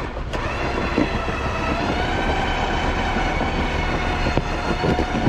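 Off-road vehicle engine held at steady revs under load, pulling on a recovery strap to free a stuck Jeep Wrangler, with a few light knocks.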